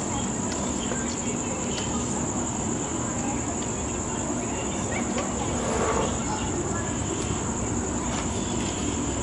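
Steady high-pitched chorus of crickets trilling, over a low, even background rumble.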